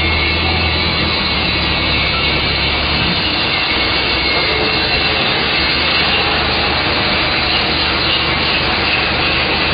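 Steady loud machinery noise with no breaks, with a low hum under it that fades out about three seconds in.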